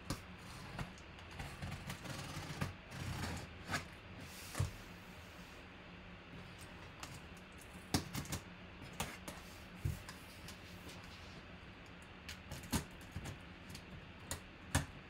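Knife blade slitting the packing tape along the seam of a cardboard box, with irregular clicks and scrapes of the blade against the tape and cardboard, and a longer scrape about three seconds in.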